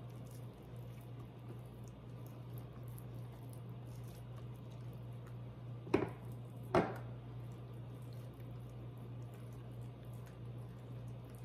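Soft, wet squishing of hands pressing and smoothing herb butter under raw turkey skin, over a steady low hum. About halfway through come two sharp knocks, a little under a second apart.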